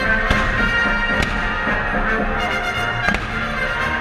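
Fireworks going off during music played for the show. The music is the loudest sound. A few sharp bangs cut through it, about a third of a second in, at a second, and just after three seconds.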